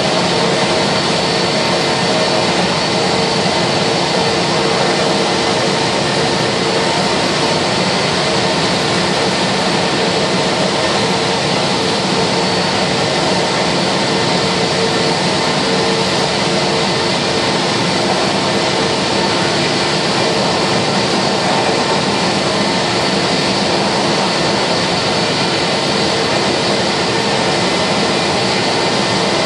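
Steady, loud jet noise from an Airbus A320 standing at the gate: an even rush of air with a constant whine on top, neither rising nor falling.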